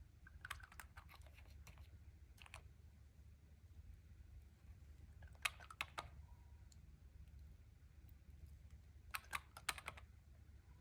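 Faint sticky clicks and pops from clear slime being pressed and worked by hand, in three short bursts: about a second in, around the middle, and near the end.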